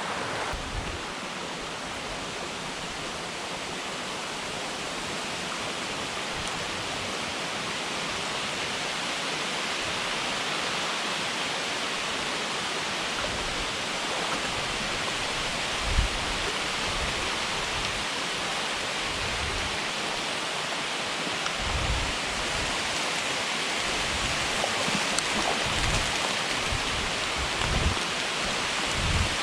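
Steady rushing of a small stream's falling water, an even hiss that grows slightly louder, with a few brief low thumps about halfway through and near the end.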